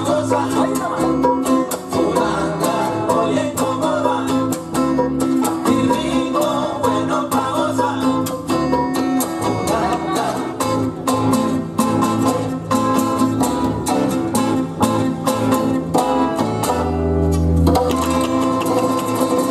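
Live Latin band playing: two acoustic guitars strumming and picking over an electric bass, with bongos and congas. Near the end the higher parts stop briefly while a deep bass note sounds.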